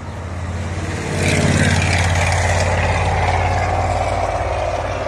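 A motor vehicle's engine running close by, growing louder about a second in, with a whine that slowly falls in pitch.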